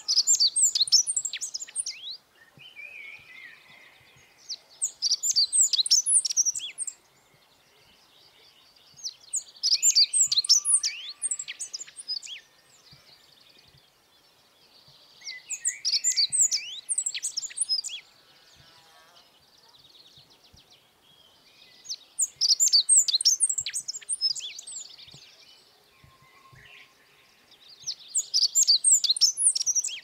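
Godlewski's bunting singing: six short, high-pitched song phrases of quick notes, each about two seconds long, repeated every five to six seconds.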